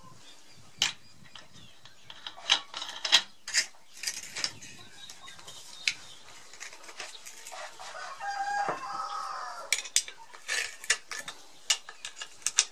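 Scattered clicks and knocks of an angle grinder with a homemade cutting disc being handled and set down among tools; the grinder is not running. A short wavering call sounds about eight seconds in.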